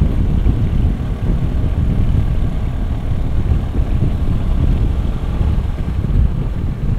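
Hero Xpulse 200 4V's single-cylinder engine running on the move over a gravel road, under a loud, steady, low rumble of wind and tyre noise on the handlebar-mounted camera.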